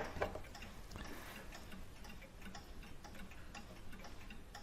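Faint, steady ticking of a clock.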